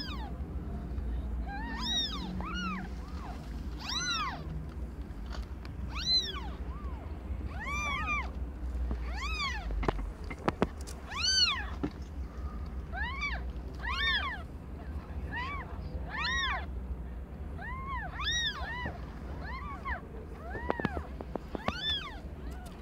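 Newborn kittens mewing: a long run of short, high-pitched cries, each rising and then falling in pitch, about one or two a second, with a few clicks around the middle.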